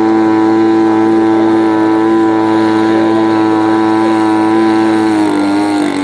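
Gasoline engine of a large-scale RC model airplane running at a steady high speed, its pitch dropping and the sound easing off near the end.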